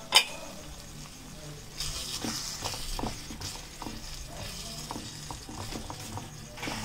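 A metal pot lid clanks down once, sharply, just after the start; then a small wooden spatula stirs and scrapes chicken mince and peas in a miniature karahi, which sizzles steadily in ghee.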